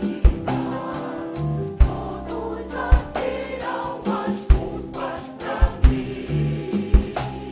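A choir singing a gospel song to band accompaniment, with low thumps marking the beat about every second and a half.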